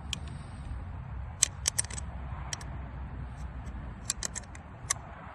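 Small sharp metal clicks and taps, a handful of them scattered through, as the hex-head wrench of a camp shovel multitool is fitted onto a hex head and turned, over a steady low rumble.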